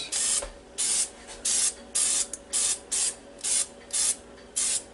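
Olive oil sprayer hissing in short, even spritzes, about two a second, lightly coating breaded zucchini and squash slices with oil.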